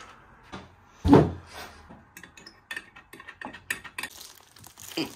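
Parts of an Elegoo resin 3D printer being handled: one loud knock about a second in, then a run of lighter clicks and knocks as the resin vat is set into place on the printer.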